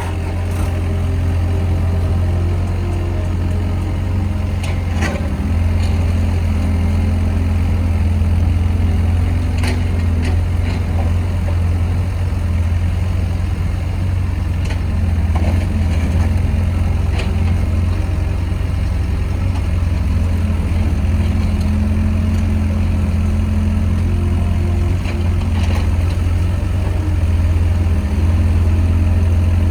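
Doosan excavator's diesel engine running steadily while it works, with a few sharp clanks of broken brick rubble being scooped and dumped.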